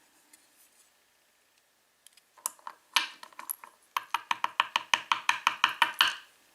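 Small metal parts of a padlock clicking as a pin is worked out of its chamber: a few sharp clicks, then a fast even run of tapping clicks, about eight a second, for two seconds.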